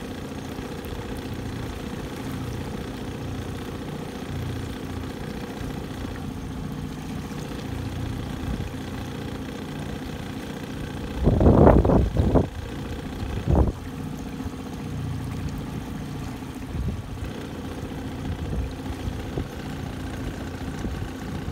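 Small outboard motor running steadily at low trolling speed. About halfway through, two short loud bursts of noise rise over it.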